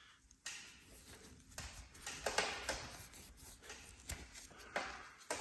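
Faint hand-handling noises at the drill press's exposed front bearing: irregular scraping and rubbing with a few light clicks.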